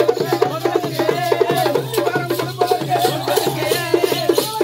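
Fast, dense drumming of South Indian temple-festival music, with a low steady drone underneath.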